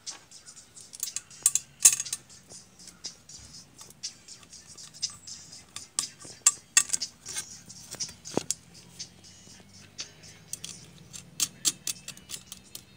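A knife scraping and cutting at a white plastic pipe while small plastic pieces and tools are handled: a run of irregular sharp clicks and scrapes, loudest about two seconds in.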